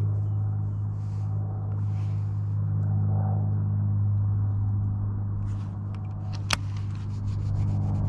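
A steady low motor hum, with one sharp click about six and a half seconds in.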